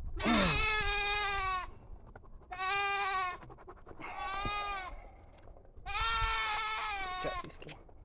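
A goat bleating: four long, wavering calls, the first and last about a second and a half each, the middle two shorter.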